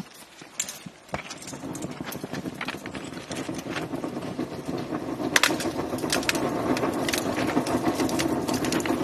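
Thermite charge burning in the crucible of a rail-welding mould: a few sharp clicks at ignition, then a steady rushing, crackling burn that builds about a second and a half in and keeps growing louder, with frequent sharp pops and spits. This is the aluminothermic reaction making the molten steel for the rail weld.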